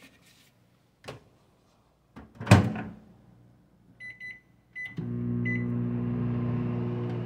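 Microwave oven: the door is shut with a loud knock, the keypad beeps several times, then the oven starts up about five seconds in and runs with a steady hum.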